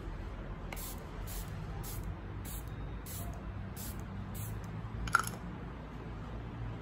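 Pump-action makeup setting spray misting onto a face: about eight quick, short hisses, roughly one every half second or so. The user finds that the spray barely comes out. A single sharp click about five seconds in.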